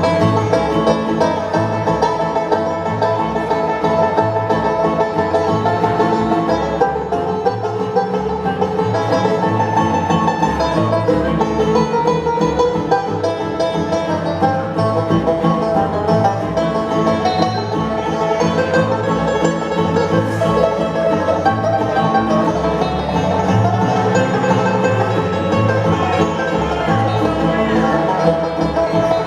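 Live bluegrass band playing an instrumental break, with banjo picking out front over guitar and a steady beat in the bass.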